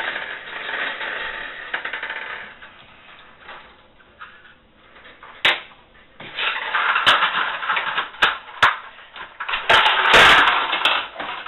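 Toy Hello Kitty gumball machine being worked by hand: scattered sharp clicks and knocks with bursts of rattling, the loudest about ten seconds in.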